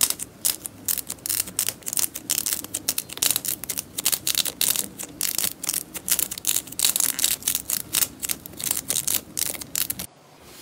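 Fingers pressing pink slime balls flat one after another, giving a fast run of crisp pops and crackles that stops abruptly near the end.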